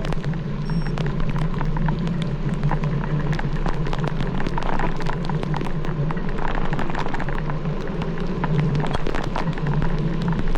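Steady low drone of a vehicle on the move in the rain, with many small irregular taps of raindrops hitting the camera and its microphone.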